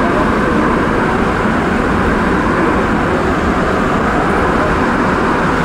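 Montreal Metro MR-73 rubber-tyred train running through the tunnel, heard from inside the car as a loud, steady rumble.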